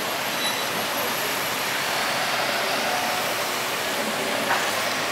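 Airbus A330's jet engines in reverse thrust during the landing rollout, a steady rushing noise that holds at one level.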